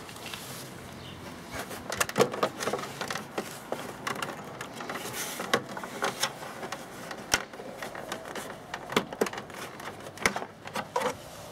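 Hands handling the plastic dashboard cowl and instrument cluster parts of a motorcycle, giving a run of irregular plastic clicks and knocks.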